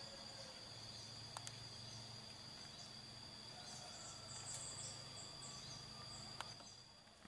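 Faint forest ambience dominated by a steady high-pitched insect drone, with a brief run of bird chirps in the middle and a few soft clicks.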